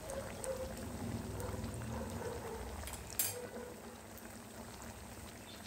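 Sabudana vadas deep-frying in hot oil in a steel kadhai, a steady sizzling and bubbling as they begin to turn golden. A single sharp click sounds about three seconds in.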